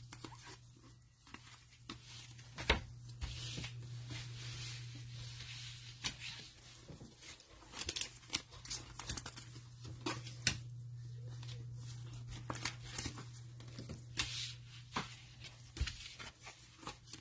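Cellophane pack wrapping crinkling and tearing as trading card packs are opened, with scattered taps and clicks from the cards being handled. A steady low hum runs underneath.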